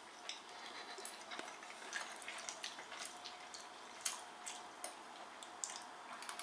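Quiet eating: a fork clicking and scraping against a ceramic bowl of pasta, about a dozen light, irregular clicks over a low hiss.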